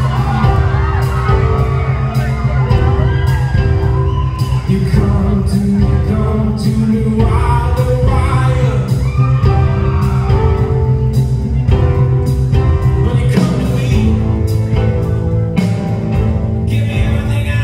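Live band performance: a male singer at the piano, backed by piano, drums and guitar, with a steady drum beat and a heavy low end.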